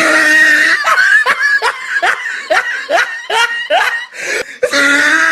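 Loud laughter: a run of short snickering laughs, about three a second, between a longer held note at the start and another near the end.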